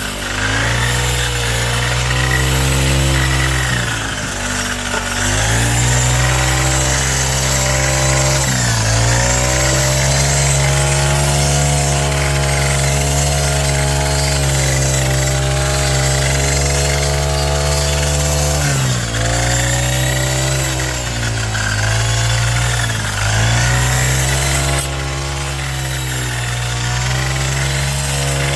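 Small engine of a grass-cutting machine running steadily at high speed, its pitch dipping briefly and recovering several times.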